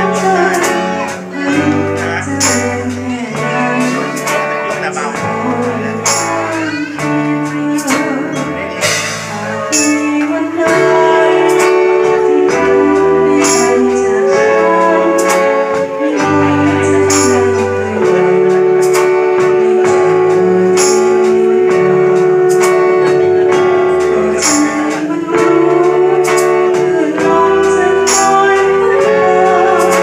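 A small live band rehearsing a song, the alto saxophone playing the melody with long held notes from about ten seconds in, over bass notes and drums with cymbal strikes.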